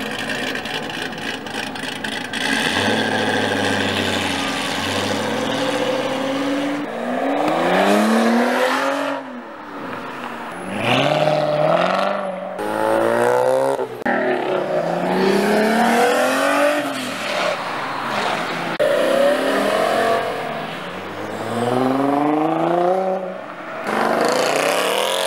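Sports cars pulling away hard one after another, each engine climbing in pitch and dropping back at every quick upshift, again and again.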